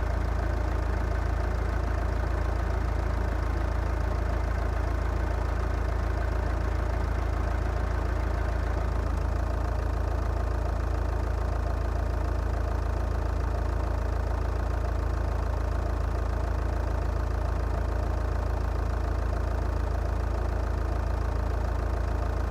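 Audi A4's diesel engine idling steadily, with no revving.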